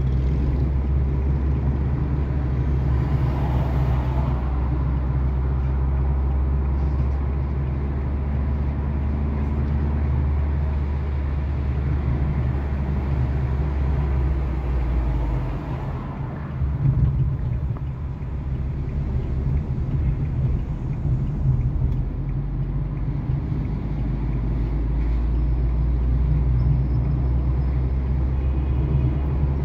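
Car interior noise while driving: a steady low rumble of engine and tyres on the road. The deepest part of the rumble drops away for several seconds around the middle, then builds back.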